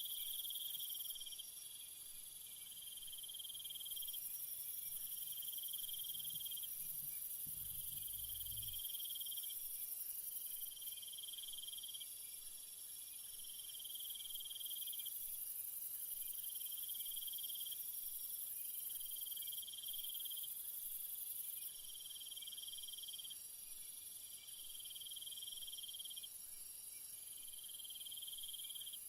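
Jungle insect chorus: crickets and similar insects trilling in steady high-pitched layers, with one lower chorus swelling in and out about every one to two seconds.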